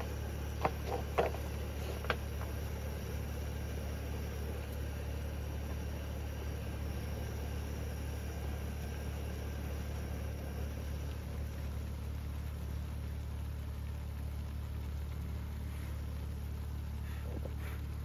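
A steady low mechanical hum, with a few light clinks of utensils against the pan and paper cups near the start.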